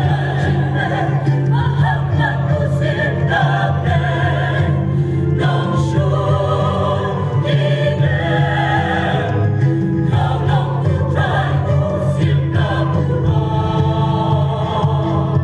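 A church choir singing a hymn, women's voices to the fore, over steady held low notes.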